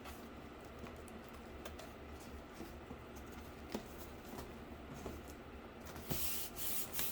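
Light taps and clicks of cardboard pieces being handled and pressed into place, with a couple of short rustling scrapes near the end.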